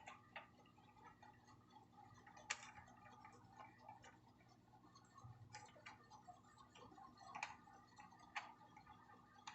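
Faint handling noise of plastic ring light parts being fitted together: scattered light clicks and taps, with a handful of sharper clicks a second or two apart.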